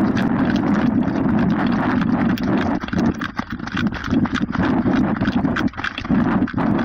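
Strong crosswind buffeting the microphone, with running footsteps crunching on desert gravel.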